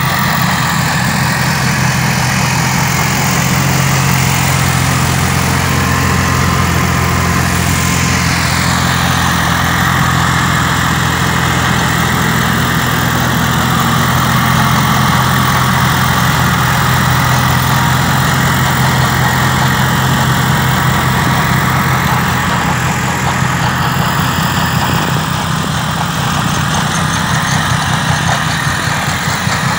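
Valtra N103 tractor's four-cylinder diesel engine running steadily under load, powering a front-mounted Trejon Optimal snow blower, with a constant rushing hiss of snow being cut and thrown from the chute.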